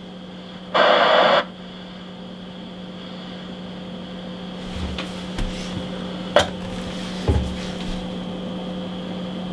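Icom IC-201 transceiver on the bench: a steady electrical hum with a short burst of receiver hiss from its speaker about a second in, then a few light clicks and knocks as its tuning knob is handled.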